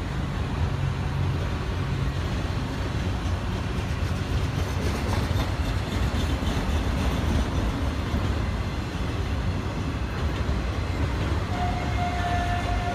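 Freight train's autorack cars rolling past at track side: a steady rumble and rattle of steel wheels on rail. A brief steady high tone sounds near the end.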